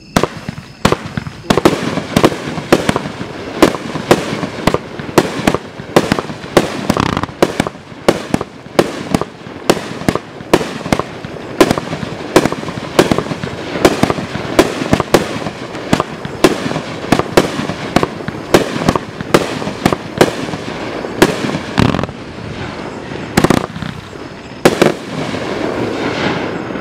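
A 30-shot 500-gram consumer firework cake (Great Grizzly 'Ben Drankin'') firing: a rapid, steady string of sharp bangs, about one to two a second, as its shells launch and burst. The last bangs come near the end and trail off into fading noise.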